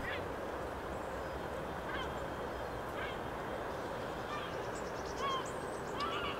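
Outdoor park ambience: a steady low background rumble with faint, short bird calls repeating roughly once a second.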